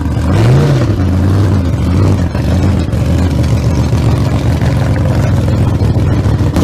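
Engine running loudly at a fast idle with a short rev about half a second in, then settling to a steady, lumpy beat. The sound cuts off abruptly.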